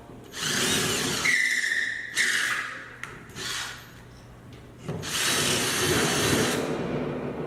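Power drill driving screws for wall-mounted brackets in three runs: about two seconds with a steady high motor whine partway through, a brief burst, then another run of about two seconds.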